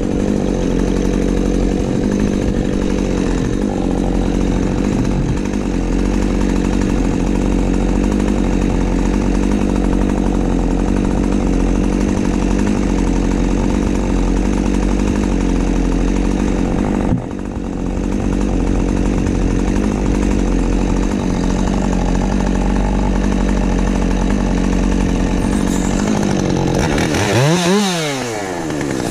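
Husqvarna 550XP Mark II two-stroke chainsaw running steadily at high speed, cutting spruce. Its sound dips briefly about two-thirds through, and near the end the engine speed falls sharply and then climbs again.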